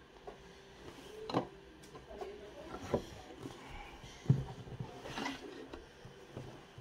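Scattered small clicks and taps of a glass vape tank being handled and twisted apart, the loudest knock about four seconds in.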